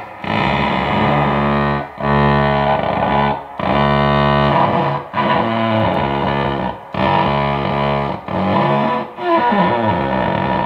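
Electric cello bowed in long sustained notes, each broken off briefly at the bow change about every one and a half to two seconds.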